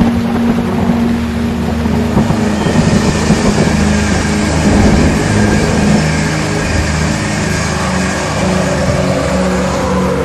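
A passenger train passing at speed: a steady rush of wheels on rails, with a tone that falls in pitch near the end as it draws away. Soft ambient music continues underneath.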